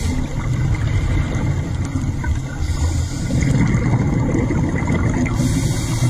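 Underwater sound from a diver's camera: a steady low rumble of water moving against the housing, with a hiss of a scuba diver's exhaled bubbles twice, about halfway through and again near the end.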